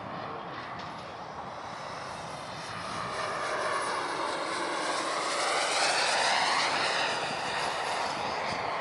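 Radio-controlled model jet's engine rushing overhead on a flypast, growing louder to a peak about six seconds in, its pitch sweeping up and then down as it passes.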